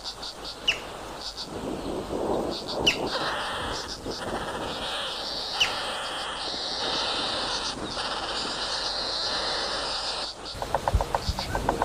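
Woodpecker calling: a sharp, high single note repeated every two to three seconds among short runs of high chirps and a steady high buzz. Near the end the sound changes abruptly to a rapid series of short pulses.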